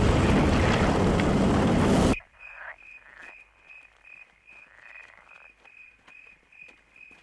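A loud rushing noise cuts off abruptly about two seconds in, leaving a quiet, steady high chirp repeating about three times a second from a small animal, with faint soft rustles.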